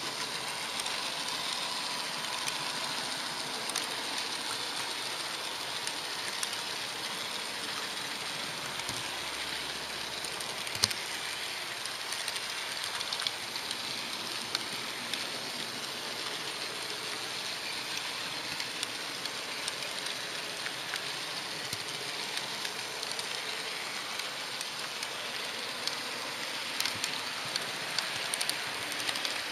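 HO-scale model train running along its metal track: a steady rolling hiss with scattered sharp clicks from the wheels, one louder click about eleven seconds in.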